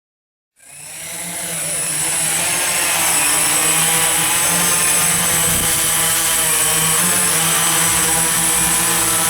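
A steady, unchanging engine drone with a high-pitched whine on top, fading in over the first two seconds.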